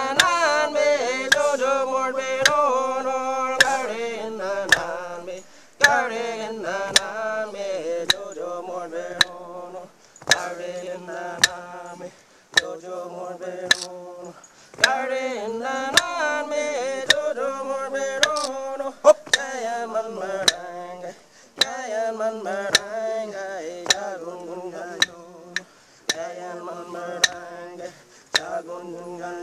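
Aboriginal song: a man chanting in repeated phrases of a few seconds each, with a sharp knock beating time about once a second.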